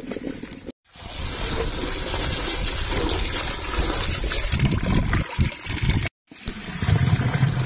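Water pouring, trickling and splashing as chopped yam and taro pieces are washed by hand in a vessel.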